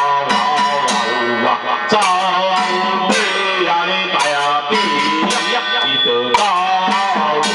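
Temple ritual chant sung over a microphone, accompanied by a small ritual band's hand gong, cymbals and drum, with strikes coming about twice a second.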